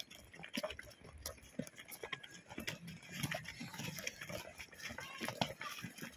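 Footsteps of a group of boys jogging on a bare dirt field: many quick, irregular footfalls and scuffs, several a second.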